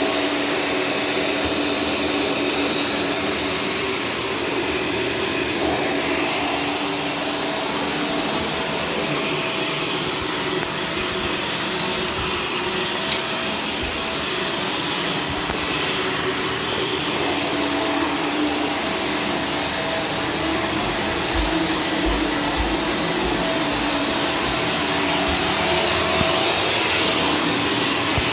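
Shark Stratos vacuum cleaner running steadily, a constant motor whine and airflow with a few low knocks about two-thirds of the way through.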